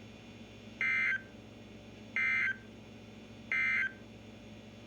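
Emergency Alert System end-of-message data bursts on NOAA Weather Radio: three short, identical, high digital bursts about a second apart, marking the end of the warning message. A faint steady radio hum and hiss lies under and between them.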